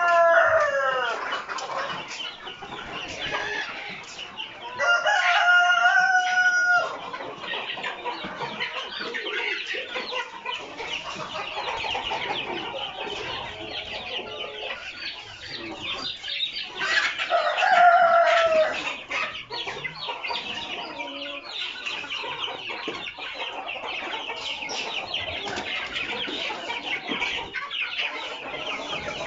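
A large flock of chickens clucking and chattering constantly, with roosters crowing three times: one crow trailing off at the start, another about five seconds in, and a third about seventeen seconds in.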